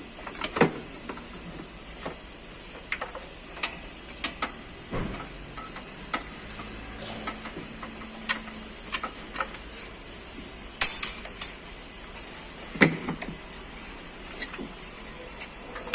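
Irregular light clicks and clinks of tools and car parts being handled during repair work, with louder knocks about half a second in, near eleven seconds and near thirteen seconds.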